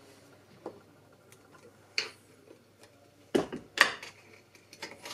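Sharp metallic clicks and taps of a tool working a reusable spring cotter pin out of a scooter's main-stand pivot bolt. The clicks are scattered, with the loudest few bunched together about three and a half seconds in.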